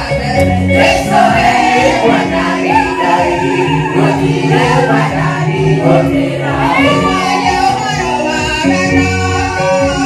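Congregation singing a gospel praise song together over instrumental backing with a steady beat.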